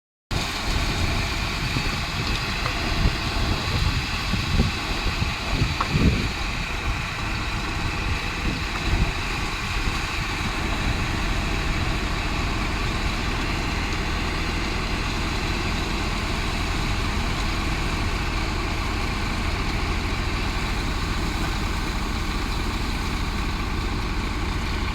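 Kobelco excavator's diesel engine running steadily, with a few irregular knocks and clunks in the first ten seconds.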